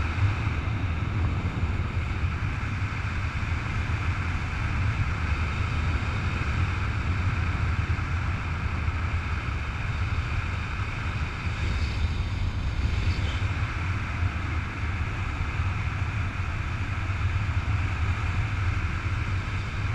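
Wind rushing over the microphone in gliding flight under a tandem paraglider: a steady deep buffeting rumble with a constant hiss above it.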